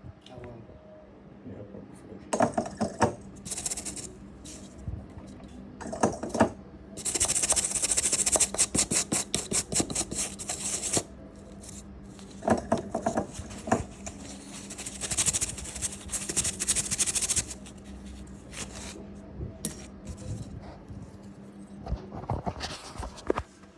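Small metal repair tools clicking and scraping on an iPhone logic board, with two longer runs of rapid scratching strokes. A faint steady hum runs underneath.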